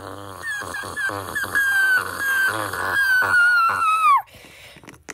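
A high-pitched, whining vocal cry over a rough low rasp, wavering in short pieces, then sliding down in pitch and breaking off about four seconds in.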